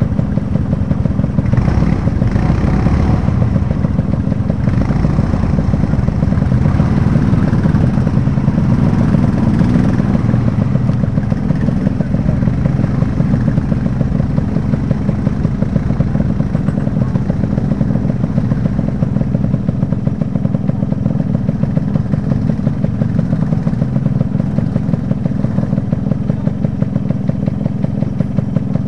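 Motorcycle engine idling close by with a steady, rapid pulse. For the first ten seconds or so, another motorcycle revs as it climbs a rocky track.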